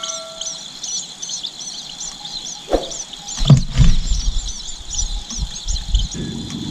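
Nestling tailorbirds chirping in a quick, steady run of short, high chirps, about three to four a second. From about halfway, low thuds and rumble come in under the chirping.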